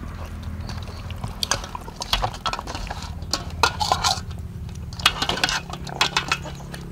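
Wet squelching and slapping of hands rubbing marinade into whole raw ducks in a stainless steel bowl, with irregular clinks of a fork against the bowl, over a steady low hum.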